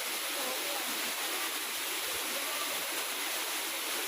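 Waterfall and its stream: a steady, unbroken rush of falling and flowing water.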